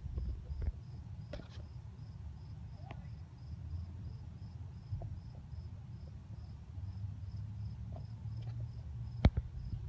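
Cricket chirping in a steady, even rhythm, about three high chirps a second, over a low rumble, with a few sharp clicks, the loudest about nine seconds in.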